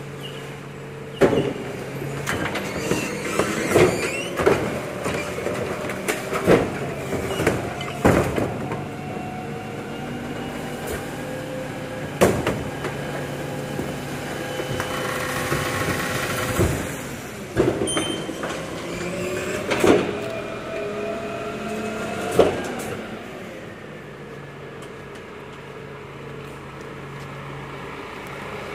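Volvo FE 300 recycling truck's diesel engine running under a hydraulic bin lifter tipping a wheeled plastic bin into the rear hopper, with about a dozen sharp clanks and bangs of the bin against the lifter and a wavering whine. Near the end the bangs and whine stop and the engine runs on more quietly.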